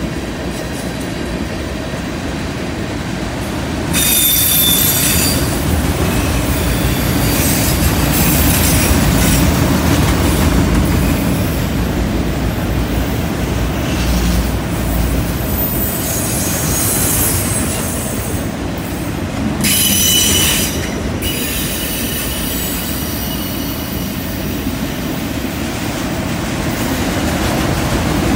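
Freight cars of a long CN train, tank cars and autorack cars, rolling past with a steady rumble and rattle of steel wheels on the rails. High-pitched wheel squeal rises out of it about four seconds in and again about twenty seconds in.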